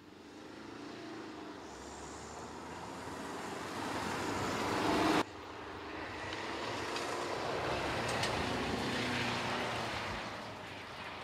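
2014 Jeep Cherokee driving along a gravel forest track, engine and tyre noise growing louder as it approaches. About five seconds in, the sound cuts off abruptly to a second pass that builds again and eases off near the end.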